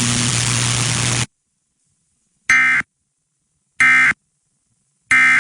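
Radio static with a steady hum cuts off about a second in. Then come three short, buzzy data bursts a little over a second apart: the Emergency Alert System end-of-message tones that close the tornado warning broadcast.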